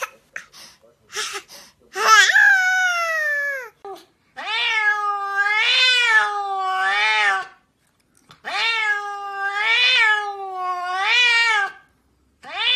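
A cat meowing in three long, drawn-out calls. The first falls in pitch and the next two waver up and down. A few short knocks come in the first second or two.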